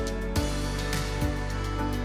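Background music with a steady beat and a guitar.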